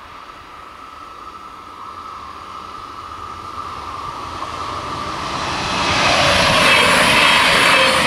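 Alstom Coradia LINT 41 diesel railcar approaching the crossing, its engine and running noise rising steadily and loudest from about two seconds before the end. The level crossing's bell rings steadily underneath.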